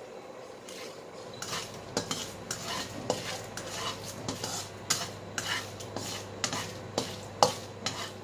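Black plastic spatula scraping and stirring dried chillies around a stone-coated non-stick wok, in uneven strokes about twice a second. Under it is a faint sizzle of the chillies frying gently in a little oil on low heat to infuse it.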